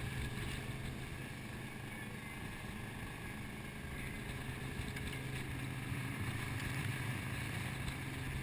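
Dive boat underway, its engine running with a steady low drone under rushing wind and water noise.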